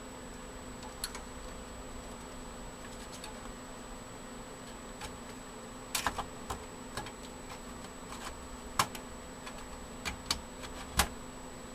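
Scattered sharp clicks and light knocks of an expansion card (a modem card) being handled and seated in a desktop computer case's slot, starting about halfway through, over a steady low hum.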